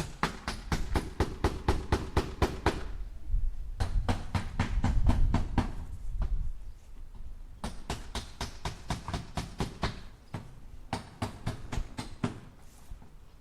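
Hammer striking nails into wood in quick runs of blows, about five a second, four runs with short pauses between. The second run is the loudest, over a heavy low thudding.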